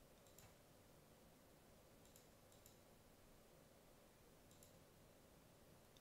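Near silence broken by about four faint computer mouse clicks, spread over a few seconds.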